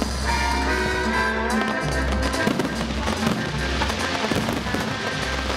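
Aerial fireworks bursting and crackling over music with a pulsing bass beat. The crackling grows denser about halfway through as a wide spray of crackling shells bursts.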